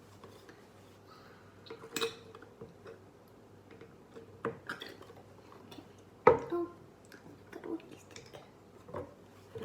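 Kitchen items being handled and set down: scattered light clicks and knocks, the loudest about six seconds in.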